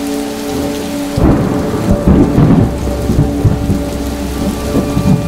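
Thunderstorm: rain falling, with a heavy rumble of thunder breaking in about a second in and rolling on in uneven swells.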